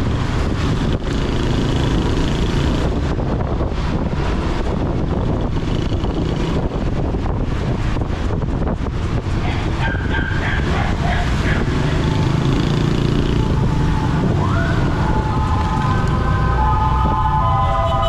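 Motorcycle riding through traffic, its engine and the wind on the camera's microphone making a steady low rumble. Near the end a tone rises and several high held tones join in.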